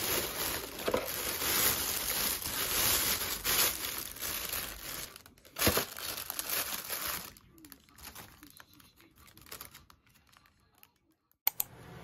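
Thin plastic bag crinkling and rustling as hands rummage through mandarin oranges inside it, with one sharper crackle about halfway through. After about seven seconds it dies down to a few small rustles.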